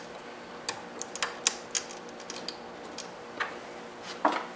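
Irregular sharp plastic clicks and taps, bunched in the first two seconds with a few more later, from snapping small 3D-printed clips that hold the stepper motor wires onto the printer's aluminium frame.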